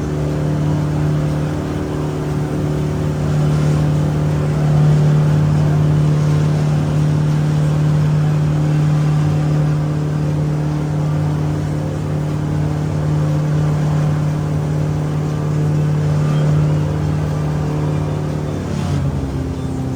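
Engine of a river water-taxi boat running steadily under way, with a shift in its pitch just before the end.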